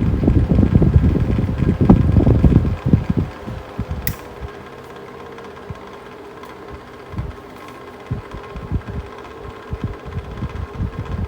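Mistral Gyro-Aire box fan running, its airflow buffeting the microphone in heavy gusts for the first few seconds. A sharp click comes about four seconds in, after which the buffeting mostly drops away, leaving a steady motor hum whose pitch eases slightly downward, with gusts picking up again near the end.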